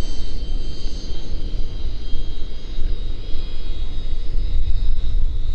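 High, steady whine of a 50 mm electric ducted fan on a radio-controlled model jet in flight, made of several tones together, two of which fade out about halfway through. Under it runs a loud, uneven low rumble.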